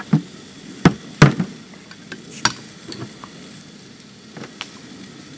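Deer steak frying in butter in a pan, sizzling steadily, with several sharp clicks and knocks from handling the pan and utensil; the loudest come about a second in.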